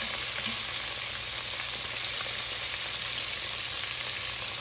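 Battered jackfruit pieces deep-frying in hot oil on high heat: a steady, even sizzle.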